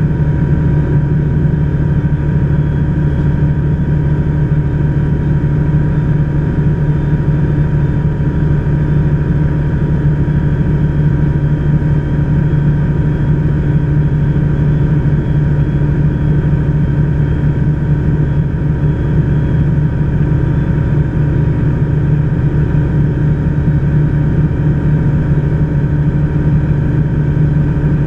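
Diamond HK36 Dimona motor glider's piston engine and propeller running steadily, heard from inside the cockpit, with an even, unchanging drone.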